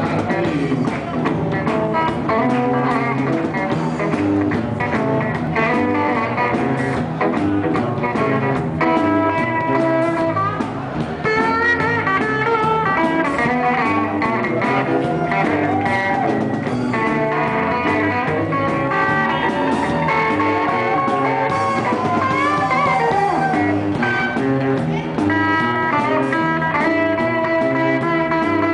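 Live blues-rock band playing: an electric guitar leads over a drum kit, with an acoustic guitar alongside.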